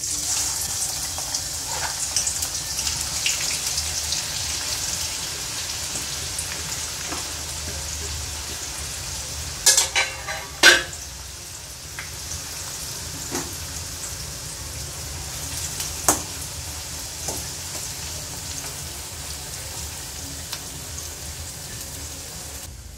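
Freshly chopped raw onions sizzling in hot oil in a stainless-steel kadai, the first stage of frying them to golden brown. The sizzle is steady, brightest just after the onions go in, with a few sharp clicks near the middle.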